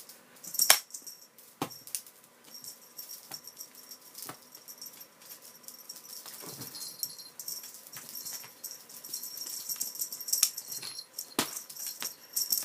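A cat's claws scratching and clicking on a pole, with scattered sharp clicks and light rattling. The loudest clicks come just under a second in and near the end.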